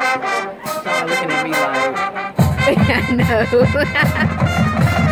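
Marching band playing: the horns hold chords, then about two and a half seconds in the drums and low brass come in suddenly with a heavy beat under the horns.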